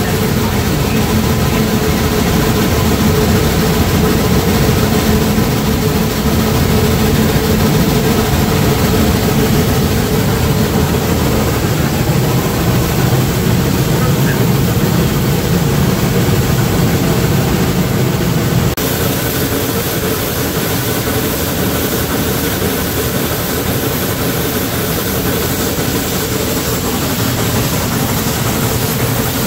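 Geared steam locomotive working hard as it pushes a passenger train up a steep mountain grade, heard from the open car just ahead of it: a loud, steady rumble of exhaust and running gear. The sound shifts abruptly about two-thirds of the way through.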